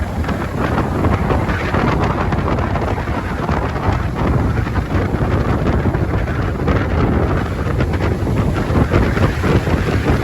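Wind buffeting the microphone, a loud, ragged rumble, over the wash of ocean surf.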